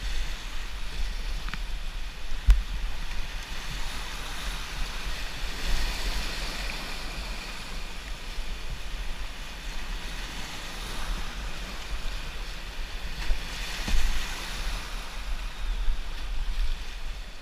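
Rushing whitewater of a river rapid, heard from a kayak running it, with low wind rumble on the microphone. A few sharp knocks, the loudest about two and a half seconds in.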